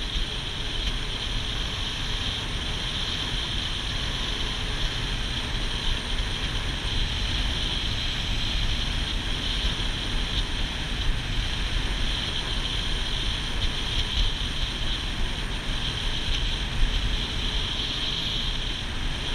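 Motorboat running steadily at speed across open water: an even engine drone mixed with the rush of water past the hull and wind buffeting the microphone.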